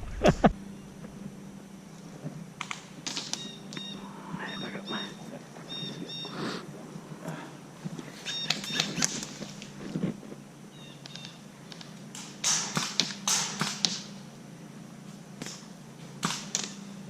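Sporadic sharp clicks of airsoft guns firing, with a quick run of them about twelve to fourteen seconds in. A bird chirps in short repeated high notes between them.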